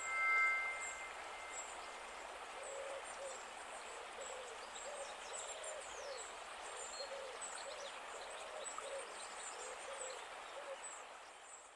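A chime rings at the start and fades over about two seconds, then a steady hiss of outdoor ambience carries a series of short, low hooting bird calls, repeated every half second or so, with faint high chirps above. It all fades out near the end.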